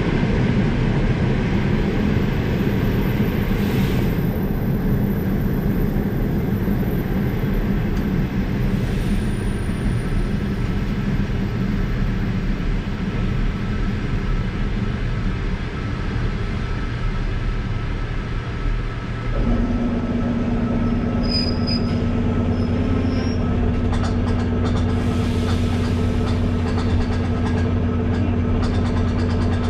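Suburban electric train heard from inside the carriage as it slows along the platform: a running rumble that eases off, then, as the train stands, a steady low hum starts suddenly about two-thirds of the way in, with a couple of faint high squeaks soon after.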